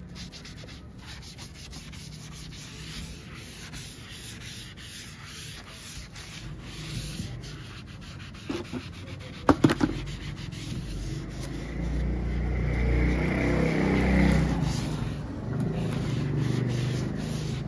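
A foam applicator pad rubbed back and forth over a plastic car bumper, a steady scrubbing. A few sharp knocks come about halfway through, then a louder low rumble lasts a few seconds.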